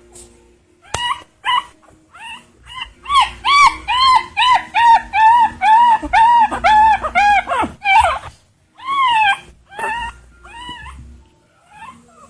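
Chihuahua crying: a rapid series of short, high whimpering cries, each rising and falling in pitch, about three a second through the middle, then slower and fainter near the end.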